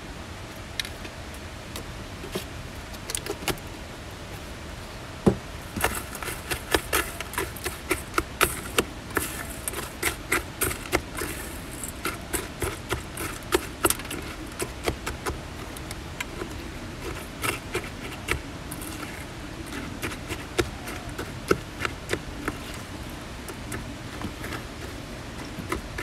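A spoon clinking and scraping against a stainless steel bowl while stirring yogurt into granola. There are a few clinks at first, then a rapid, irregular run of them through most of the stretch.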